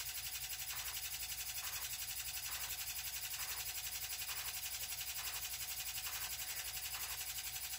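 Faint steady low hum and hiss: room tone, with no other sound.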